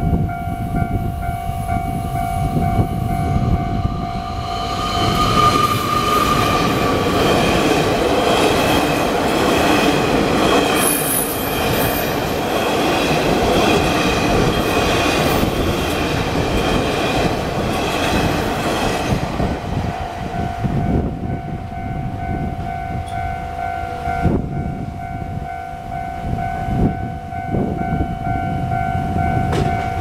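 A Taiwan Railways train of Fu-Hsing express coaches, running empty, passes over a level crossing: a loud rush of wheel and rail noise builds from about three seconds in and dies away after about twenty seconds, with a brief high squeal in the middle. Under it the crossing's electronic warning bell rings on a steady tone, heard plainly before the train arrives and again once it has gone.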